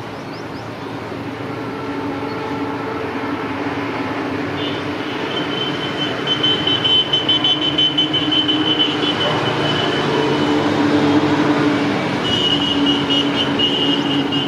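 Diesel locomotives of an EMD WDG4D and WDG4 pair running under load at the head of a loaded freight train, growing steadily louder as they approach. A high steady whine joins the engine sound about five seconds in, fades, and returns near the end.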